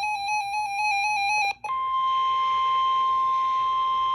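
Weather alert radio's buzzy warble alarm, rapidly alternating between two pitches, cuts off about a second and a half in and gives way to a single steady high tone, the NOAA Weather Radio 1050 Hz warning alarm tone that signals a warning is about to be broadcast.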